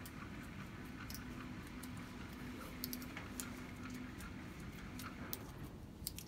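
Scattered small clicks and crinkles as ECG lead wires are unsnapped and adhesive electrode pads are peeled off a patient's chest, over a faint steady low hum.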